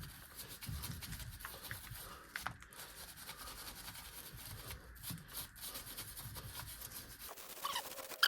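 Faint rubbing and scraping with scattered light clicks: hands handling tools and loosened car parts, with no hammering or power tool.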